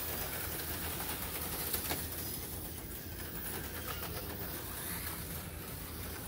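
Steady low electrical hum with a faint hiss, with no distinct events.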